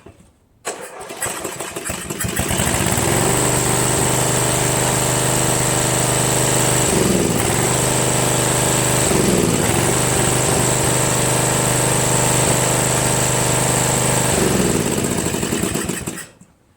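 Murray Select lawn tractor engine cranked by the starter about a second in. It catches and runs steadily, sags in speed twice, then dies near the end. The owner puts the shutdown down to the brake safety switch cutting the engine after the seat switch bypass.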